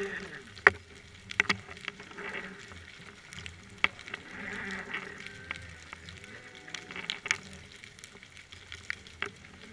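Underwater sound picked up by a submerged camera: scattered sharp clicks and crackles over a faint hiss, with a few soft swells.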